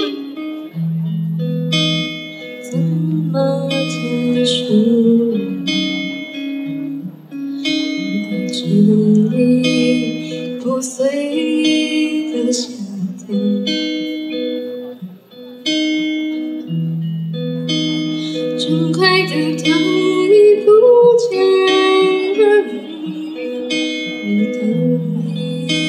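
Fingerpicked steel-string acoustic guitar accompanying a woman singing into a microphone in a live duo performance; the guitar plays a steady pattern of plucked notes over bass notes every couple of seconds.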